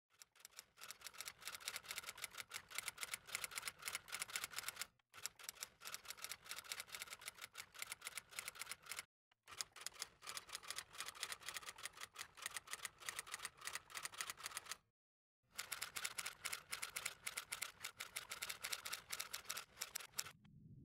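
Typewriter sound effect: rapid, continuous key clacks in four runs, each broken off by a brief silence.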